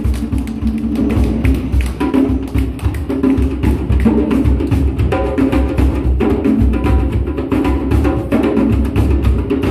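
A group of djembe hand drums played together in a steady, dense rhythm, deep bass strokes under sharp, crisp slaps.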